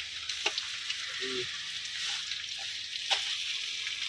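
Chopped onions sizzling as they hit hot oil and whole spices in a steel kadhai, with a few sharp clicks of the steel spatula scraping them off the plate, about half a second in and again about three seconds in.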